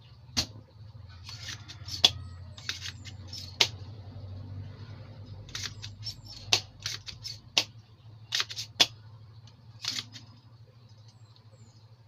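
Spring-loaded desoldering pump (solder sucker) being cocked and fired again and again on the board: sharp snaps, several with a short hiss of suction, about a dozen in all, over a steady low hum. The pump is worn out and not clearing the solder well.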